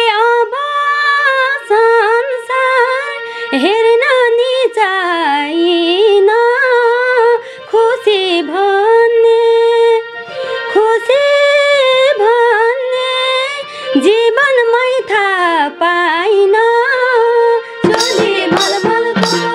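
A woman singing a slow melody with long held and gliding notes over a steady held drone. Drum beats come in near the end.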